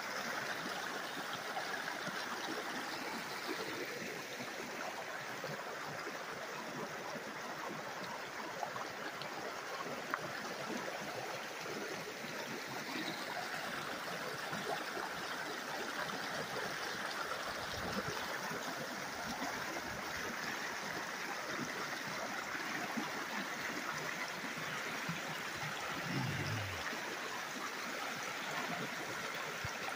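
Shallow mountain stream rushing steadily over rocks and small rapids.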